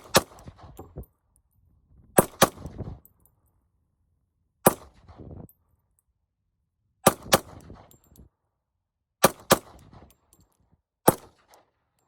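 Glock 20 pistol fitted with a KKM .40 S&W conversion barrel being test-fired: about ten sharp shots, mostly in quick pairs with a pause of a couple of seconds between them, each followed by a short echo. The pistol cycles the whole magazine of .40 rounds without a malfunction.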